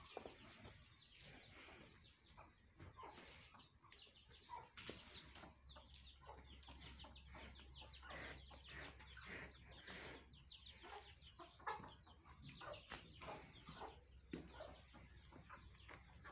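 Faint calls of farmyard birds: many short chirps and calls scattered through, with no single loud event.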